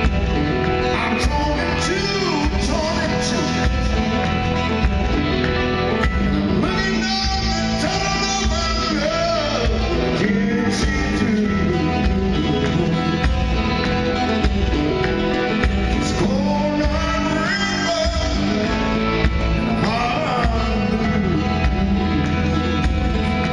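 Live rock band playing a song: male vocals over acoustic guitars, drums and keyboard.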